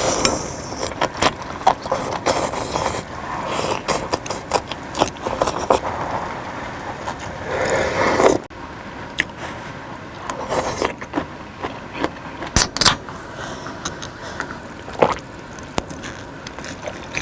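Clicks, taps and scrapes of utensils and dishes being handled, with a short rushing hiss that builds about eight seconds in and cuts off suddenly.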